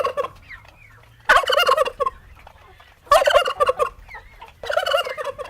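Turkey gobbling: four quick rattling gobbles, each under a second long, with short pauses between them.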